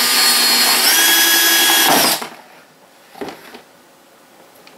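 Cordless drill running as it bores a hole through the wall of a clear plastic storage tub: a steady motor whine that steps up in pitch about a second in and stops about two seconds in. A short knock follows about a second later.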